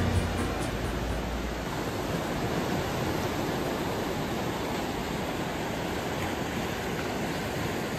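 Steady rushing noise, even and unbroken, with background music fading out in the first second or so.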